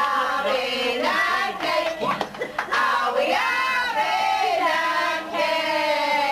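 A man singing, his voice rising and falling, then holding long drawn-out notes from about three seconds in.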